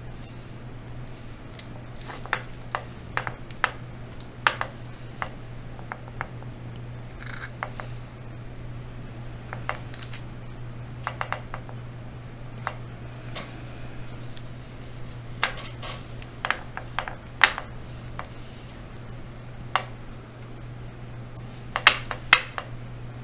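Craft knife blade trimming soft polymer clay against a ceramic tile under patty paper: scattered sharp ticks and clicks, some in quick clusters, over a steady low hum.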